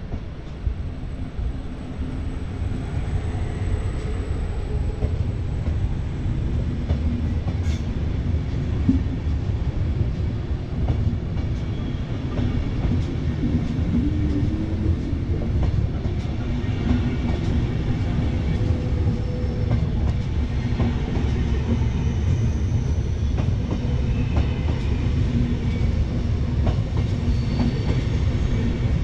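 SBB push-pull passenger coaches rolling past at close range, a steady low rumble of steel wheels on the rails with some clatter, growing a little louder over the first several seconds.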